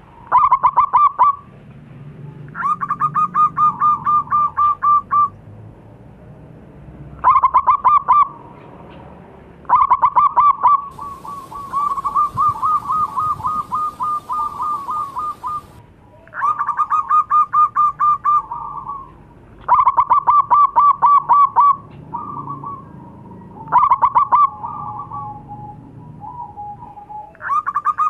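Zebra dove (perkutut) cooing its loud song: repeated phrases of rapid staccato coos with short gaps between them, one running on longer near the middle.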